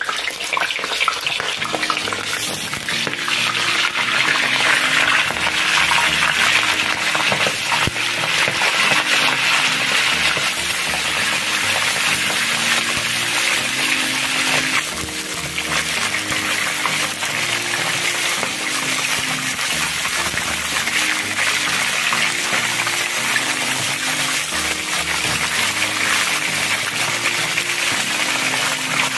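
Pieces of turkey searing in hot oil, a steady loud sizzle as the meat browns. Background music plays underneath.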